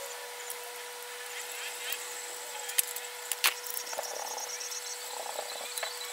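Scattered sharp clicks and knocks from handling a repaired Packard shutter's metal plate and lever mechanism, the two loudest about three seconds in, over a steady hum and hiss.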